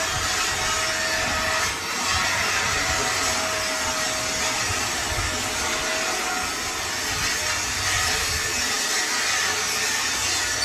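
Metal lathe running while cutting the steel blank of a chain sprocket: a steady hiss of machining with a faint wavering whine and a low rumble underneath.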